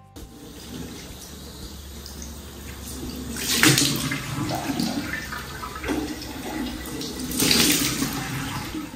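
Bathroom tap running into a ceramic washbasin, with two louder spells of splashing: one about three and a half seconds in and another near the end, as water is splashed about in the basin during a face wash.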